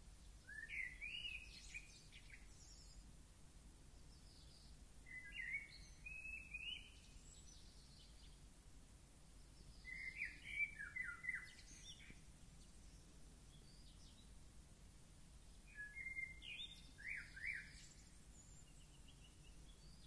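A songbird singing four short, twittering phrases about five seconds apart, each a quick run of sliding notes, over faint steady background noise.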